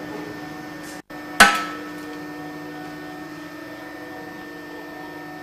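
One loud, sharp snap from an Ideal LSF004 electric wire welder as it fires a weld on copper wire clamped in its jaws, with a short metallic ring after it, about a second and a half in. A steady low hum runs throughout, and the sound cuts out for a split second just before the snap.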